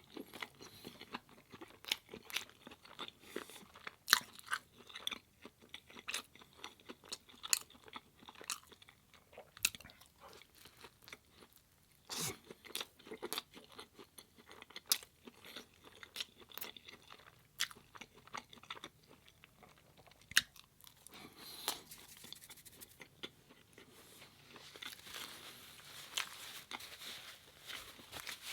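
Close-miked chewing and crunching of food in a person's mouth: irregular crisp crunches and wet mouth clicks, busier and more continuous in the last few seconds.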